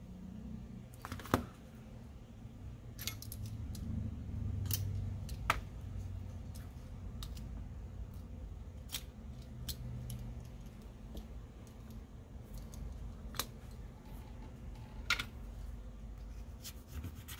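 Scattered sharp clicks and taps of a plastic pry tool and a utility knife working adhesive tape on a phone's metal frame, over a low background rumble.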